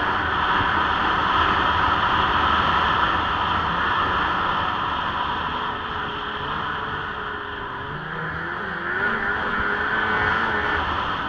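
Lynx 700 snowmobile running at speed along a packed trail, engine noise mixed with wind and track noise. It eases off a little past the middle, then picks up again with a rising pitch near the end.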